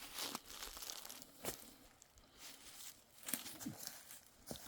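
Faint, irregular crunching and rustling with a few sharp crackles: footsteps through dry leaves and brush on frozen ground.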